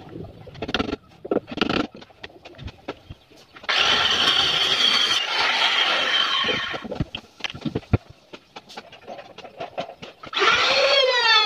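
Woodworking power tool running for about three seconds with a steady high whine, between scattered knocks and taps on wood; near the end a pitched whine starts up, its pitch dipping and rising.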